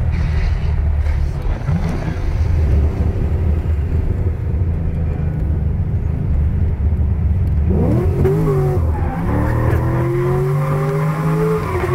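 Modified V8 of a VE Commodore SS wagon, heard from the cabin: a steady low rumble at part throttle, then from about eight seconds in the engine revs and pulls harder, its pitch swinging up and down before climbing steadily.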